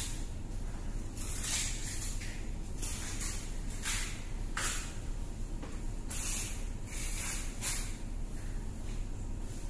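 A knife being sharpened: a run of quick rasping strokes of the blade, one or two a second with short pauses, over a steady low hum.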